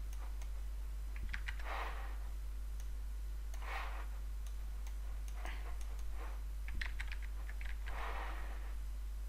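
Computer mouse and keyboard clicking in short clusters, with soft breaths on the microphone every couple of seconds over a steady low hum.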